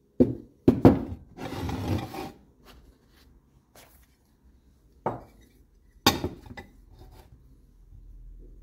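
Riveted sheet-steel armour pieces set down on a wooden workbench: two clanks in the first second, a scrape lasting about a second as a piece slides, then two more clanks about five and six seconds in, the last one loud with a brief ring.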